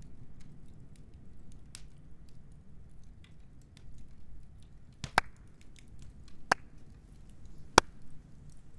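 Campfire crackling: scattered small ticks and pops of burning wood, with three louder, sharper snaps in the second half.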